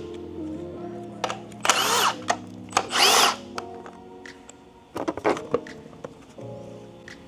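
Cordless power tool running in two short bursts about a second apart, each spinning up and winding down, as fasteners are removed from the K24A2 engine during teardown. A few sharp clicks follow around five seconds in, over steady background music.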